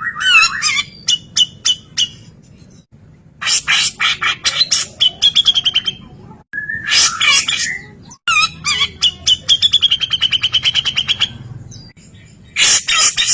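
Grey-cheeked bulbul (cucak jenggot) singing in its rapid 'tembakan' style: fast runs of sharp repeated notes, about eight a second, mixed with trills and gliding whistled phrases. The song breaks off briefly a few times.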